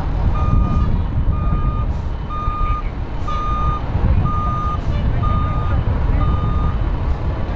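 Heavy truck's backup alarm beeping steadily at one pitch, about once a second, seven beeps, then stopping shortly before the end, over the low rumble of idling engines.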